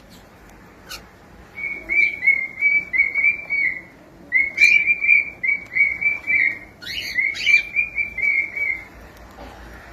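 Cockatiel whistling its song: three runs of quick, clear whistled notes at a steady pitch, about three to four notes a second, with short pauses between runs. A single sharp click comes just before the first run.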